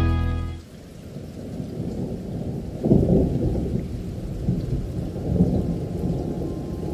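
Thunderstorm ambience: a low, muffled rumble of rolling thunder under rain, swelling about three seconds in and twice more after. A held music chord dies away at the very start.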